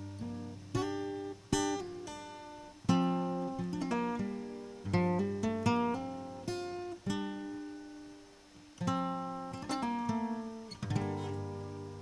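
Background music on acoustic guitar: plucked notes and chords, each starting sharply and then ringing and fading.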